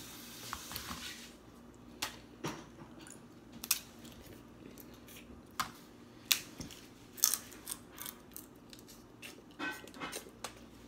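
Snow crab leg shells cracked and pulled apart by hand close to the microphone, giving scattered sharp cracks and clicks, with chewing as the crab meat is eaten.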